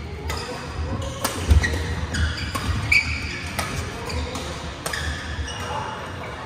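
Badminton rally: rackets striking the shuttlecock with sharp cracks every second or so, sneakers squeaking on the court, and heavy footfalls as players lunge, the loudest thud about a second and a half in, all echoing in a large hall.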